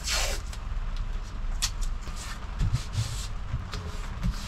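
Blue painter's tape being pulled off its roll with a short rasp, then torn with a sharp click. Hands then smooth the tape and paper down onto a plywood table, with light rustles and a few low thumps.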